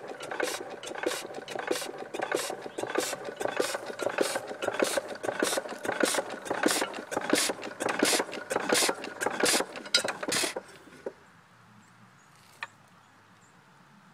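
A 1.5 hp Sattley hit-and-miss gas engine running in a short burst: sharp, regular beats a little over two a second over mechanical clatter. It stops abruptly about ten and a half seconds in, failing to stay running, which the owner puts down to a bad condenser. A single sharp click follows about two seconds later.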